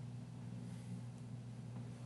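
Steady low hum under a faint, even hiss: background noise of the recording, with no distinct event.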